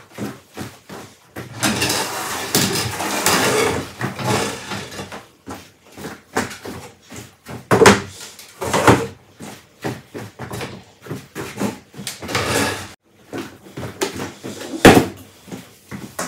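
Tidying and rearranging sounds in a small room: a stretch of scraping and rustling near the start, then scattered knocks and clunks of things being moved, set down and shut, the loudest about fifteen seconds in.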